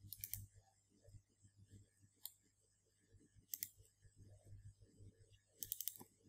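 Faint computer mouse button clicks: a few near the start, a single click about two seconds in, a quick pair about three and a half seconds in, and a short run near the end, over a faint low hum.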